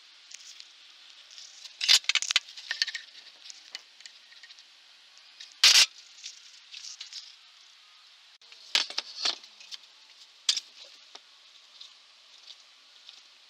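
Scattered sharp clicks and knocks of workshop parts being handled: a steel threaded rod and its washers clinking against MDF boards. The events come in small clusters about 2 s and 9 s in, and the loudest single knock is a little before the middle.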